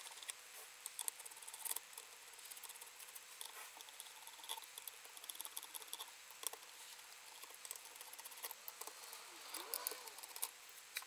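Faint, irregular small clicks and scrapes of a 3 mm Allen key working the screws on the top rail of a Daystate Delta Wolf air rifle as they are loosened one after another.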